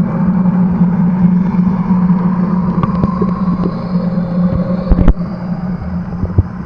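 Steady low engine drone heard through the water, with a sharp knock about five seconds in.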